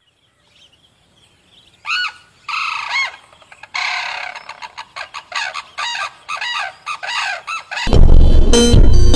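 A bird calling in a series of short notes that rise and fall in pitch, a few scattered at first, then a quick run of about three a second. Loud electronic music cuts in near the end.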